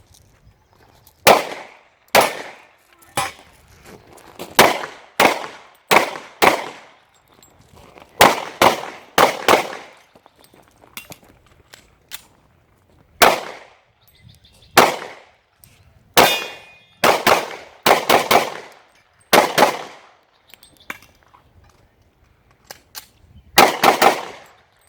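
Pistol firing in several quick strings of two to five shots, about twenty shots in all. Each sharp crack is followed by a short ringing tail.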